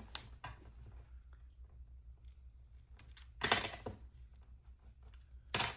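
Paper and sticker handling at a desk: faint ticks, then two short, loud rasps of paper or sticker stock, one about halfway through and one near the end.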